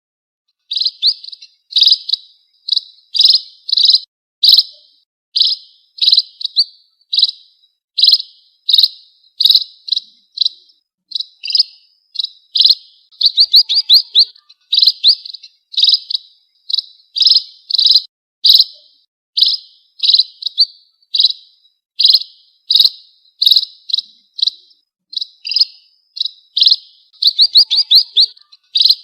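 Emprit (munia) calls used as a bird-trapping lure: short, high chirps repeated about once or twice a second, some strung into quick rattling runs of several notes.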